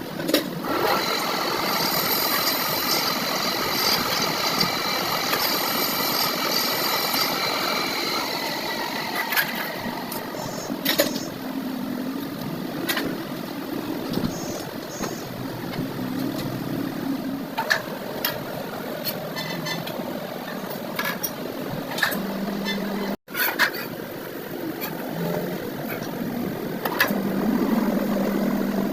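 A workshop machine runs with a steady pitched tone for about eight seconds, then stops. Scattered sharp metallic clicks and knocks from handling or working on parts follow.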